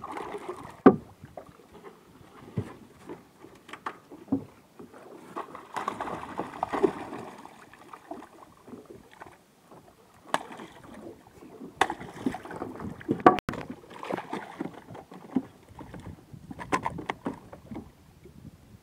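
Water splashing and sloshing against the side of a small fishing boat as a hooked skipjack tuna thrashes at the surface and is hauled aboard. Scattered sharp knocks on the hull, the loudest about a second in and again near two-thirds through.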